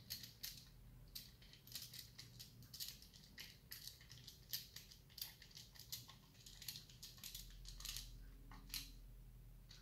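Faint, irregular little clicks and ticks from a small precision screwdriver driving a tiny M2.5 screw through a clear plastic screen protector into a plastic housing.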